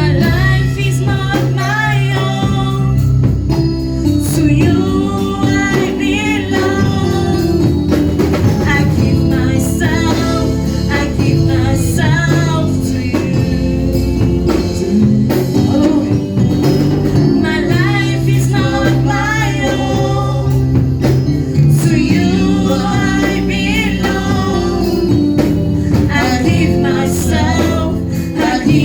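Gospel worship music: voices singing over a band with a steady bass line and percussion keeping a regular beat.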